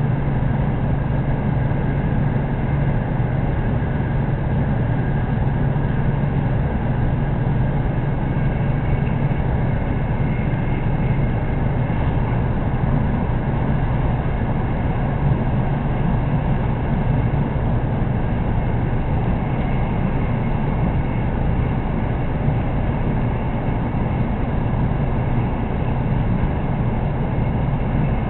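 Steady running noise of a Sanyo Shinkansen Hikari bullet train heard from inside the passenger car: a constant low rumble with an even hiss of wheel and air noise above it.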